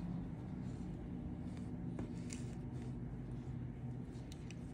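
Steady low hum of room tone, with a few faint scratchy ticks from hands working wool yarn through a rug fringe with a metal needle, about two seconds in and again near the end.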